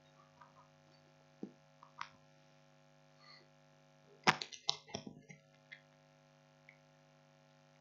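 Steady electrical mains hum with a few scattered knocks and clatters, the sharpest about four seconds in, followed by a quick run of smaller ones.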